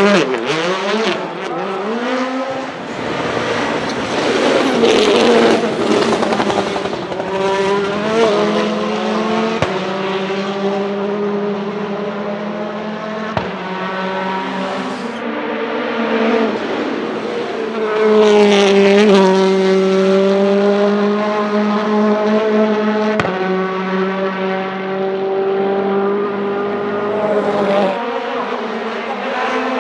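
Hyundai i20 WRC rally car's turbocharged four-cylinder engine at full power: quick rises and drops in revs at first, then long stretches held at high, nearly steady revs with brief dips in pitch. It is loudest about 18 seconds in.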